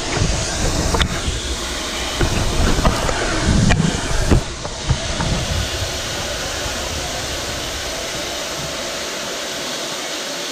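Ol49 steam locomotive standing and hissing steadily with escaping steam. Low rumble and a few knocks in the first few seconds, then only the even hiss.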